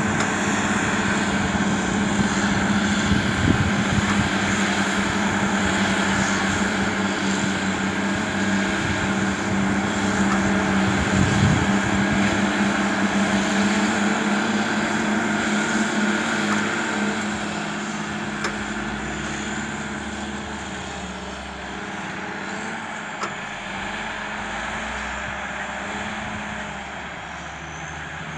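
Caterpillar 627G twin-engine wheel tractor-scrapers, coupled as a push-pull pair, running their diesel engines steadily under load. The drone eases off somewhat about two-thirds of the way through.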